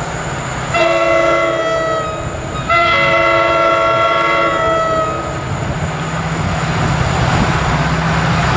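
Multi-tone air horn of an approaching NJ Transit diesel commuter train, sounded in two long blasts: one from about one to two seconds in, and a longer one from about three to five seconds in. After the horn, the diesel engine's rumble and the rail noise grow as the train draws near.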